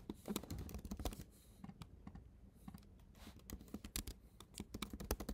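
Faint typing on a computer keyboard: a run of irregular keystroke clicks as text is entered into form fields.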